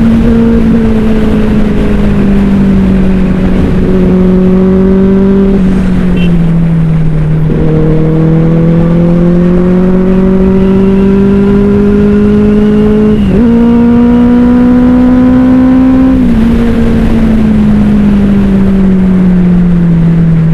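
Benelli 600i inline-four motorcycle engine through an aftermarket IXIL exhaust, running under way with a loud, steady note. Its pitch drifts slowly up and down, with quick shifts in pitch about seven, thirteen and sixteen seconds in, as the rider changes gear.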